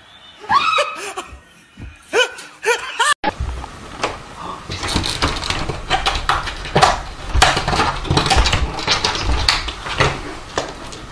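People laughing hard and almost without pause from about three seconds in. Before that come a few short rising-and-falling cries.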